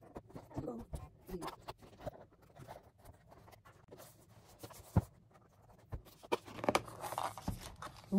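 Scissors cutting the seal on a cardboard product box, then the box being handled and its lid lifted off: paper rustling and scraping with scattered taps and sharp clicks, the loudest about five seconds in and again near the end.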